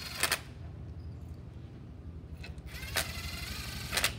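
Cordless drill-driver with a socket running cover bolts into a motorcycle engine's aluminium side cover. There is a brief whine of the motor about three seconds in, and sharp clatters as the bolts seat, once just after the start and again near the end.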